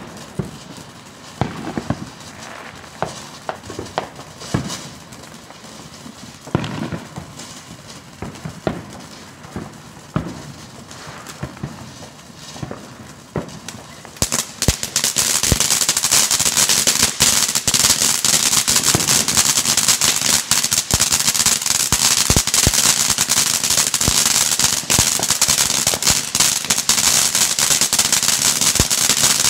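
Ground fountain firework spraying sparks, hissing with scattered pops and crackles. About halfway through it flares up into a much louder, dense crackling hiss that keeps going.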